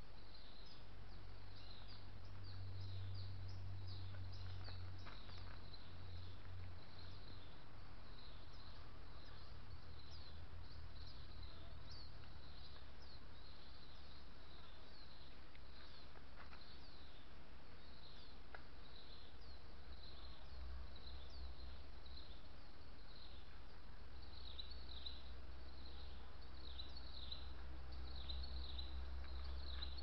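Field ambience of short, high chirping calls repeating about two a second, over a low steady rumble.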